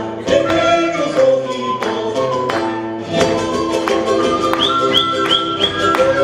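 Live Andean folk music: an end-blown quena flute plays a melody with held notes over strummed charango and guitar, with regular strokes on a bombo drum.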